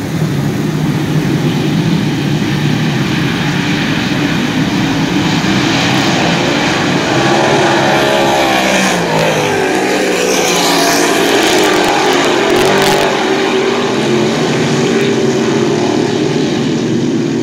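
A pack of dirt-track modified race cars running hard around the oval, their engines loud throughout. The sound swells as the field passes close about halfway through, with the pitch dropping as the cars go by.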